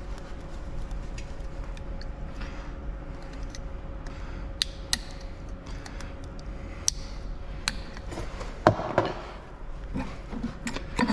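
Scattered metallic clicks and clinks as a splined shaft and a hand tool are worked at the centre of a Fendt 724 tractor's front wheel hub, the sharpest knock about two-thirds of the way through. A steady low hum runs underneath.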